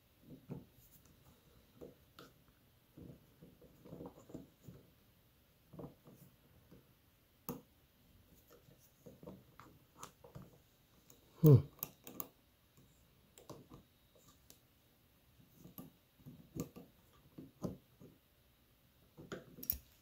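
Faint, irregular clicks and scrapes of a hex key turning the set screw of a stainless kitchen faucet handle and the handle being worked loose, with one louder knock about halfway through.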